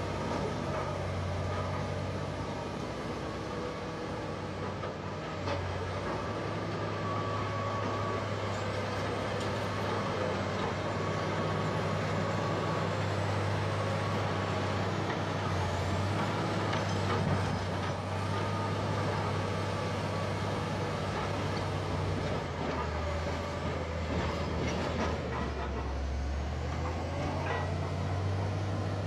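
Diesel engine of an earthmoving machine running steadily under working load, its low hum shifting a little as the load changes. A few short clanks and a faint high squeal come through over it.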